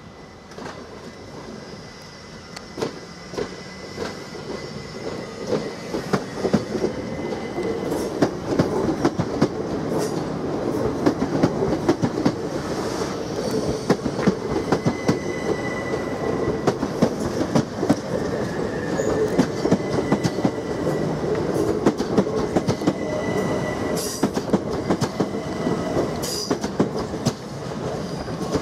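Class 377 Electrostar electric multiple unit running into the platform on a curve, growing louder as it draws alongside: wheels clicking over rail joints, with a high wheel squeal coming and going.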